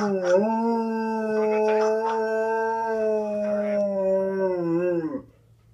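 Alaskan Malamute howling: one long, steady howl that dips briefly near the start, then falls in pitch and stops about five seconds in.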